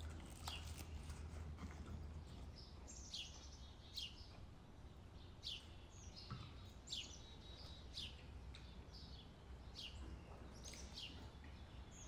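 Faint bird chirps: short, sharp calls that fall in pitch, about one every second, over a steady low hum.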